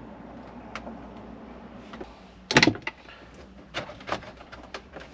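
Plastic dash trim bezel around a Chevy Silverado's radio being pried at by hand to free its clips: sharp plastic clicks and knocks. A quick cluster of clicks about two and a half seconds in is the loudest, with a few single clicks after it.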